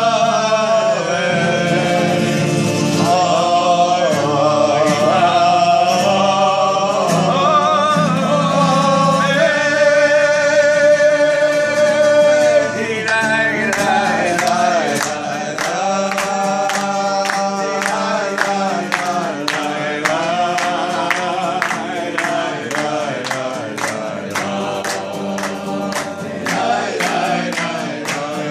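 A group of men singing together. About halfway through, the singing continues with acoustic guitar accompaniment and steady hand clapping to the beat.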